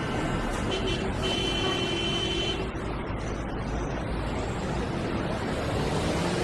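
Steady road traffic noise from passing vehicles, with a brief held tone from about one to nearly three seconds in.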